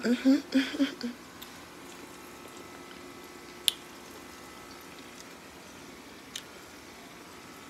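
A woman's voice humming briefly. Then a faint, steady sizzle of frying grease, with a few soft clicks.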